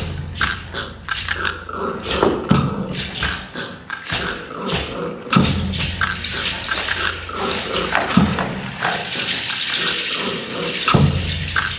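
Animal-like cries and growls with rattling and many sharp knocks, over a low hum that comes and goes several times.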